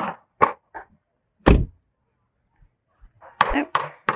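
A car door being shut with one heavy thud about a second and a half in, amid short knocks and rustling from a handheld camera being carried.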